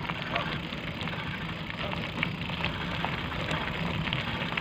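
Motorcycle engine running steadily at low speed over a rough dirt track, with scattered small clicks and rattles.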